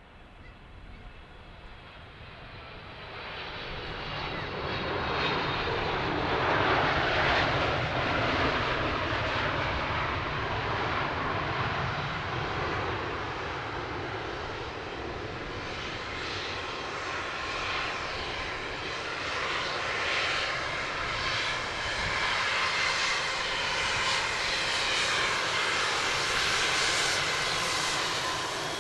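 Jet airliner engines, growing louder over the first five seconds or so and then running loud and steady with a whining tone over the rush.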